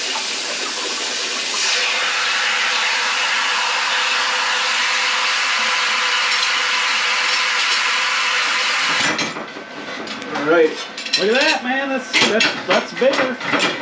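CNC plasma table's torch cutting 16-gauge steel sheet: a loud, steady hiss that cuts off suddenly about nine seconds in as the cut ends. Voices follow.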